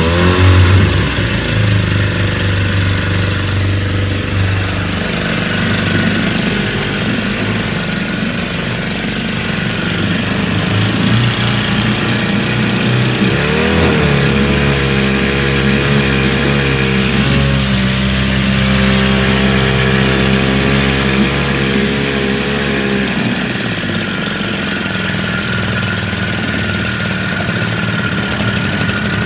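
Vintage outboard with a Villiers 7F engine on a Whiteman jet leg, running in a water tank. The engine speed shifts several times and wavers up and down about halfway through, over the hiss of the jet churning the water.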